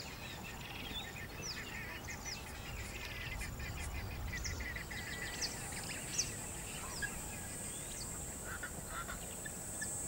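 Outdoor nature ambience: several birds chirping with short, quick, falling calls, some busier chatter in the first half, and a steady high insect buzz that comes in about halfway through, over a faint background hiss.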